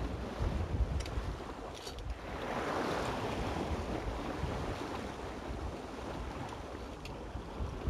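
Sea water rushing and splashing along the hull of a Contessa 26 sailboat under sail, with wind buffeting the microphone. A louder surge of wash comes about two and a half seconds in.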